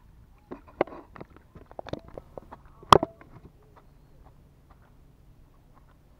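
A run of small irregular clicks and knocks from the fishing tackle as a fish is lifted in a plastic-framed landing net past the rod stand, with one sharp knock about three seconds in; after that only a faint low hum.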